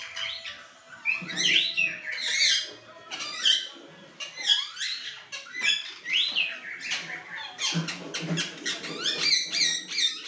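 Caged cockatiels and ring-necked parakeets calling: many overlapping shrill chirps and whistles that rise and fall in pitch, one after another.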